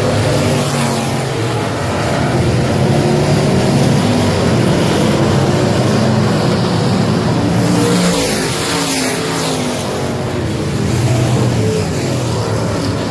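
A field of street stock race cars running at racing speed on a dirt oval, many engines overlapping at different pitches. The sound swells and falls as cars pass close, with a drop in pitch as one goes by about eight seconds in.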